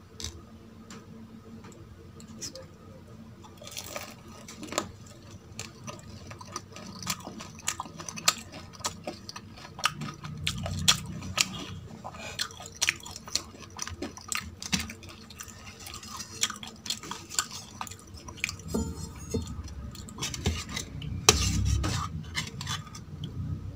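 Close-miked eating: chewing with many sharp crunches and clicks, and dishes clinking now and then.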